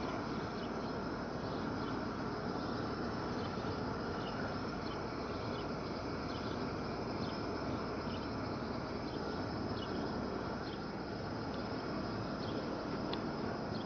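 Steady outdoor street ambience: a continuous rushing background noise with scattered short, high chirps through it.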